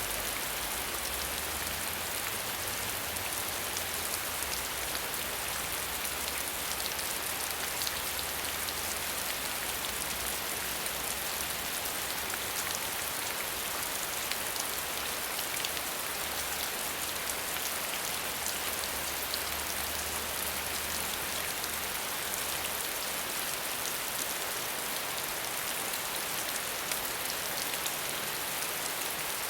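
Heavy rain falling steadily: a dense, even hiss with many fine patters of individual drops. A faint low rumble underneath drops away about three quarters of the way through.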